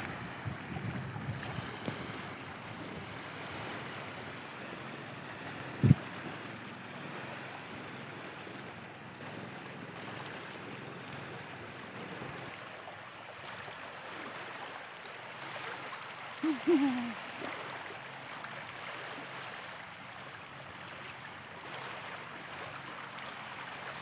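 Small waves lapping and washing up a pebbly freshwater shore in a steady wash. A single sharp thump about six seconds in is the loudest sound, and a short, high voice-like sound, such as a toddler's, comes about two-thirds of the way through.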